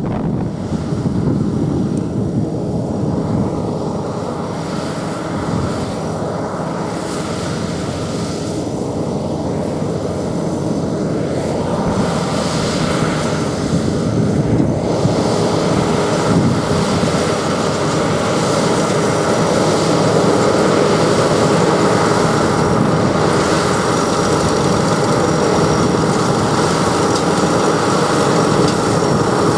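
Sakpattana SS100 mini rice combine harvester running steadily: a dense engine and machinery drone with several steady tones, growing somewhat louder from about halfway through.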